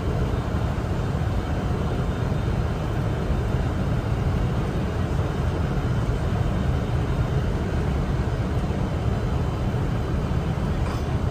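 Steady cockpit noise of a Boeing 747 on final approach: a constant low rumble of airflow and engines.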